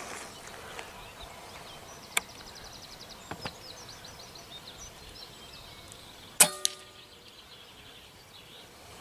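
A single .177 air rifle shot about six seconds in, a sharp crack with a brief metallic ring, followed a moment later by a smaller knock. Birds chirp and trill in the background.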